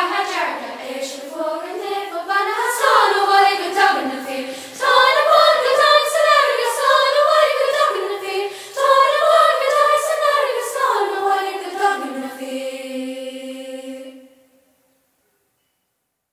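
Junior school choir of children's voices singing an Irish folksong unaccompanied and in unison, ending on a long held note that fades out about two seconds before the end.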